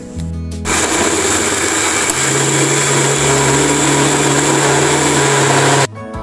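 Small electric countertop blender running at a steady speed for about five seconds, grinding garlic, shallots, chillies and dried anchovies into a fine paste, then switched off abruptly.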